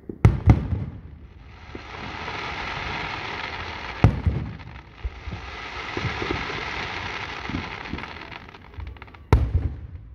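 Aerial fireworks shells bursting with sharp bangs: two in quick succession at the start, one about four seconds in, and one near the end. Between them runs a long sizzling hiss from the sparkling stars.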